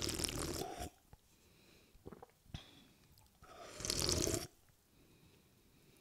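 A person slurping a drink loudly: two long slurps about three and a half seconds apart, each lasting about a second, with a few small mouth clicks between them.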